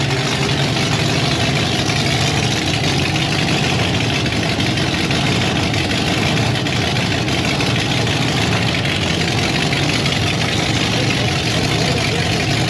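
Hot rod engine idling steadily as the car is driven slowly across the show floor.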